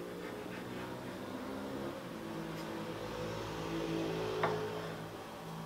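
Kitchen knife slicing smoked trout on a wooden cutting board, with one sharp tap of the blade on the board about four and a half seconds in, over a steady low drone.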